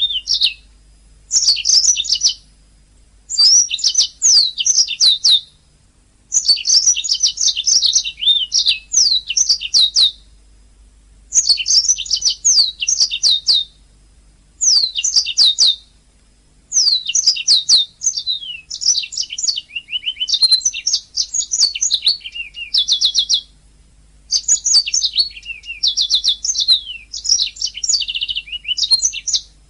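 Domestic canary singing in bursts of rapid, high trills and quick repeated chirping notes. Each phrase lasts one to four seconds, with short pauses between them.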